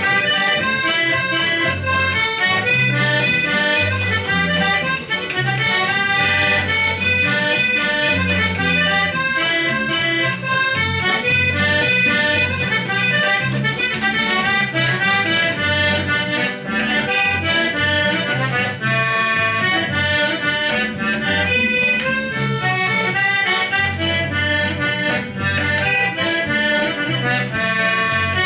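Accordion playing an instrumental folk tune, with guitar accompaniment and low bass notes changing beneath it; no singing.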